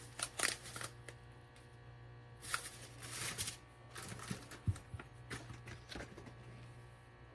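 Scattered rustling and small clicks of objects being handled, over a steady low hum.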